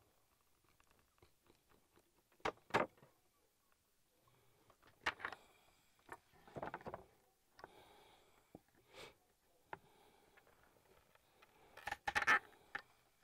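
Hand work on a leather strap at a wooden workbench: a series of short scrapes and knocks from the leather and a small hand tool, the loudest near the end.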